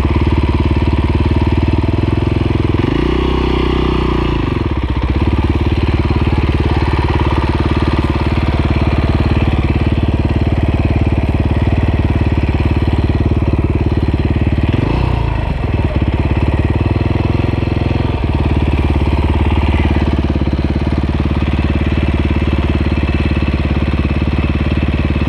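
KTM dirt bike engine running at steady revs. The throttle is blipped briefly twice, about three seconds in and again about fifteen seconds in, the pitch rising and dropping back.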